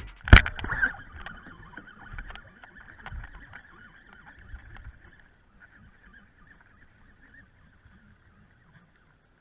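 A sharp click, then a baitcasting reel whirring as a lure is cast and reeled in. The whir fades after about five seconds.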